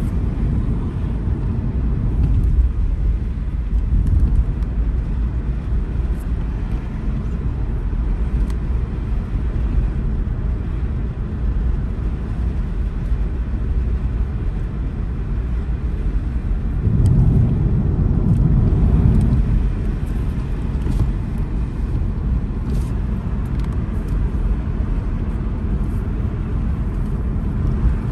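A car driving along a town road: the steady low rumble of its tyres and engine, swelling louder for a couple of seconds about two-thirds of the way through.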